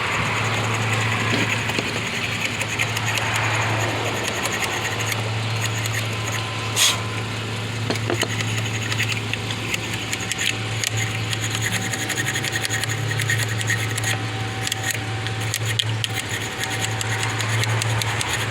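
Scraping and scrubbing with a hand tool at a corroded car battery terminal, made of many small scratches and clicks with one sharper click about seven seconds in, over a steady low hum.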